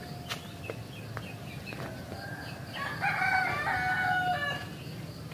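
A rooster crowing once, a single call of about a second and a half starting about three seconds in.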